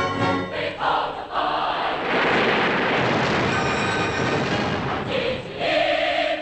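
Film score of a choir singing sustained chords. From about two to five seconds in, a stretch of dense battle noise from explosions and gunfire covers it, and the singing comes through again near the end.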